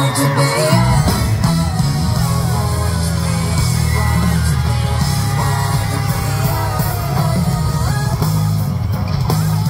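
Live band playing a heavy, rock-style concert intro through a venue sound system, with a deep sustained bass, and audience yelling over it.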